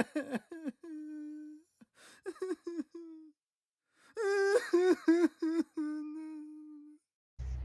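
A man's voice humming a short tune in two phrases, each ending on a held low note of about a second, with a brief pause between them.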